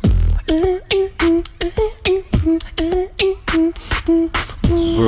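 Beatboxing: a quick, steady rhythm of sharp snare-like clicks and hits mixed with short notes on one repeated pitch. It opens with a deep kick and ends in a held, wavering vocal tone.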